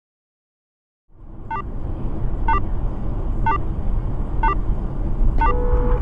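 Car driving at speed, its road and engine rumble heard inside the cabin, starting about a second in. A short electronic beep sounds about once a second, and near the end a steady tone comes in while the beeps quicken.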